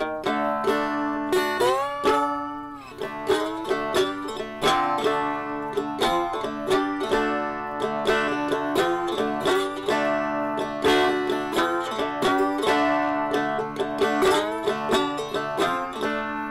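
Background music: plucked string instruments playing a quick, busy tune, with a sliding bend in pitch about two seconds in.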